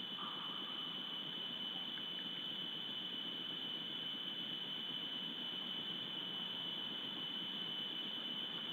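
Steady high-pitched whine over a constant hiss, with no animal calls: the electronic noise of a wildlife camera's microphone.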